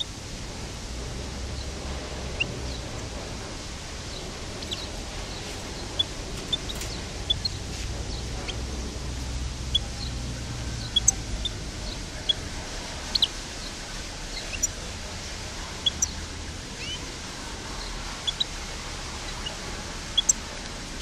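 European goldfinch of the parva race giving short, sharp chirps at irregular intervals, roughly one a second, over a steady hiss and a low hum.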